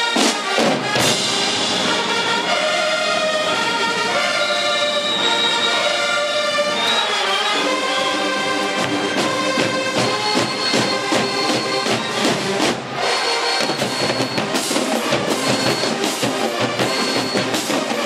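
HBCU marching band playing: full brass holding chords at first, then, about seven seconds in, shifting to a faster drum-driven passage with short repeated high brass figures over a steady beat, broken by a brief gap a little past the middle.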